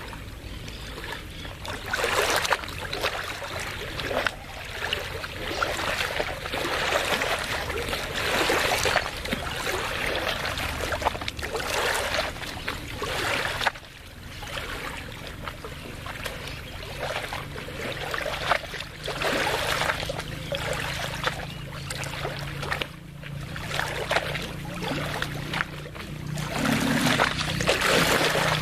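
Small waves of the lagoon lapping and splashing at the water's edge in irregular washes, one every second or two. A low steady hum runs underneath and grows stronger about halfway through.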